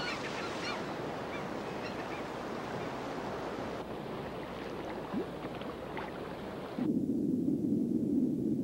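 Rushing river water through rapids, a steady wash of noise. About seven seconds in it changes suddenly to a muffled, low rush of water as heard underwater.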